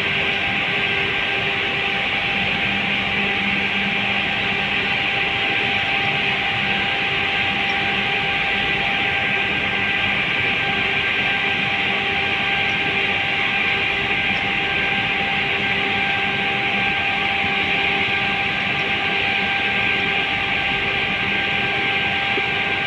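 Steady drone of running cement plant machinery: an even hiss with several constant hum tones layered under it.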